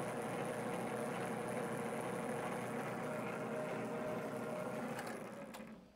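Metal lathe running in back gear at roughly 150 rpm, a steady motor-and-belt hum while the threading tool takes a light cut on the spinning work. About five seconds in, the lathe is switched off and spins down to a stop.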